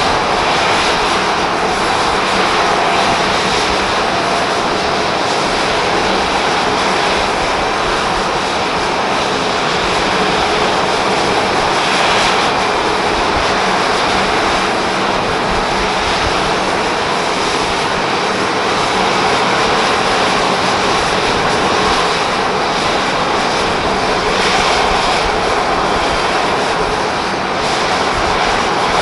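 Boeing 737-500's CFM56-3 turbofan engines running steadily, a constant loud jet noise with no big rise or fall in level.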